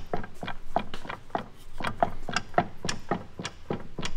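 Quick, irregular knocks and clicks, about four or five a second, from the driveline of a BMW 335i fitted with a one-piece driveshaft and a Ford 8.8 limited-slip differential with carbon clutches. The owner says this noise is normal for the setup.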